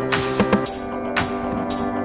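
Background music with a steady drum beat, about two hits a second over sustained instrumental notes.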